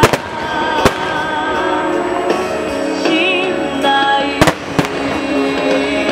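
Aerial firework shells bursting in sharp bangs, about four in all: two in the first second and two close together a little past the middle, over steady loud music.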